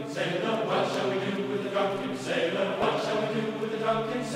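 Intro music of voices singing together in a chant-like chorus, with long held notes.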